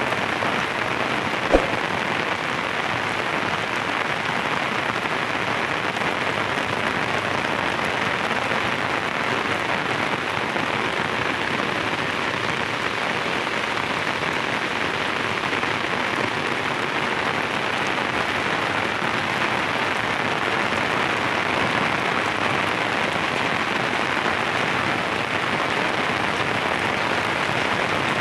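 Torrential rain pouring steadily, an even hiss, with one sharp click about a second and a half in.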